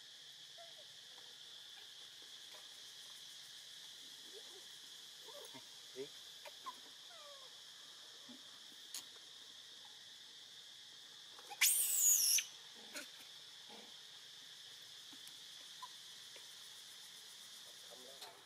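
A steady, high insect drone with a few faint short chirps and light clicks, broken about twelve seconds in by a loud, very high-pitched squealing call lasting under a second.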